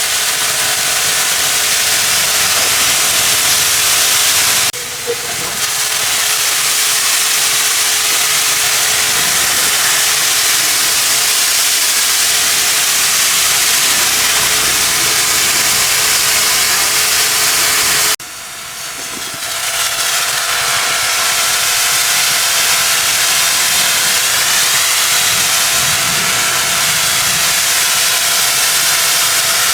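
A cleaning machine's jet hissing loudly and steadily over a steady motor hum. It breaks off briefly twice, about five seconds in and again about eighteen seconds in, and builds back up gradually after the second break.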